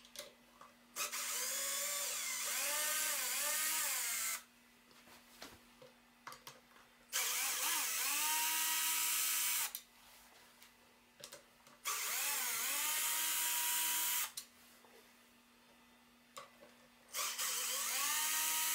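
Cordless drill backing out the screws that hold the Klipsch R10SW's 10-inch woofer in its cabinet, in four runs of about two to three seconds each. Each run starts with a rising motor whine that settles to a steady pitch, the first one wavering up and down. Small handling clicks fall between the runs.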